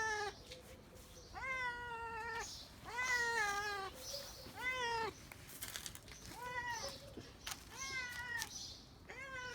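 Domestic cat meowing over and over: about seven drawn-out meows, each rising then falling in pitch. These are the calls of a cat that is hungry and thirsty.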